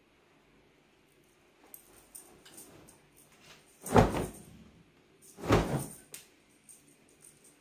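Freshly washed bed linen being shaken out by hand: cloth rustling, then two loud flaps of the fabric about a second and a half apart, near the middle.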